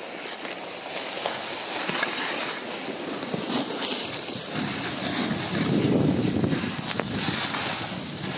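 Wind buffeting the microphone of a skier on the move, with the hiss of skis sliding and carving on packed snow. The rumble swells in the second half.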